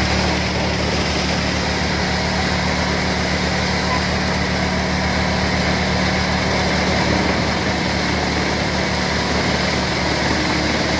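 Threshing machine and the engine that drives it running steadily under load as dried crop plants are fed in: a constant low engine hum with a dense mechanical whir over it.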